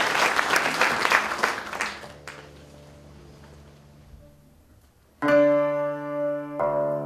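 Audience applause dying away, then after a quiet pause a concert cimbalom strikes a loud chord about five seconds in and lets it ring, with a second chord about a second and a half later: the rubato opening of a csárdás.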